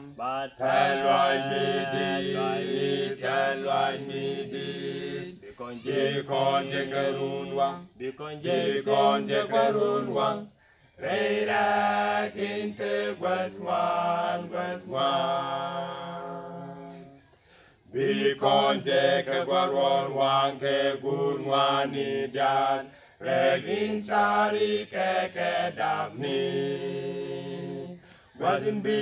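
Male vocal quartet singing a cappella in harmony. The singing breaks off briefly twice, once about a third of the way in and again past the middle after a long held chord fades away.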